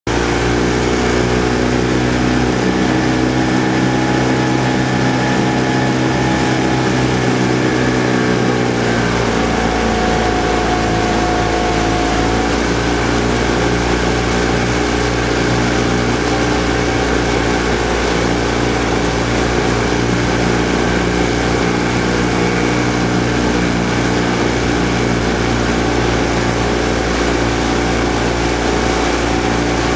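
Outboard motor of a boat running steadily at a constant speed, with a slight shift in pitch about nine seconds in.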